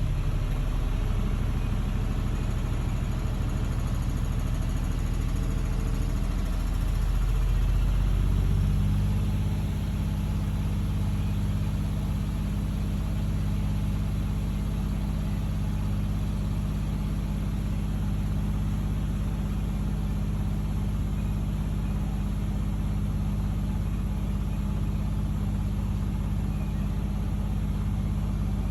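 Miele washing machine with an inverter-driven motor on an intermediate spin, its drum spinning with a steady low hum and motor tones. The tones shift and the sound swells briefly about seven to nine seconds in, then the spin holds steady.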